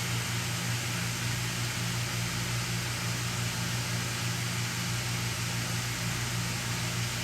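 Steady low hum with a faint hiss, unchanging throughout: background noise in a small room.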